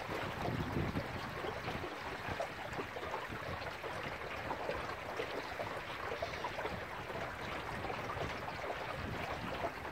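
Water splashing and rushing along the bow of a small wooden sailing boat under way, a steady broken slosh with many small splashes. Gusts of wind rumble on the microphone, strongest about half a second to a second in.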